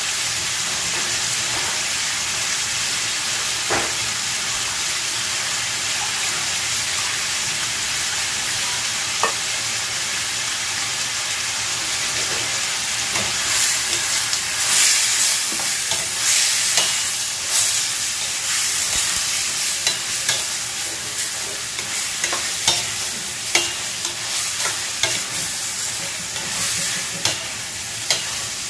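Chicken pieces sizzling steadily in hot oil in a stainless steel pan as they brown. From about halfway through, a metal spatula scrapes and knocks against the pan in quick irregular strokes as the pieces are stirred.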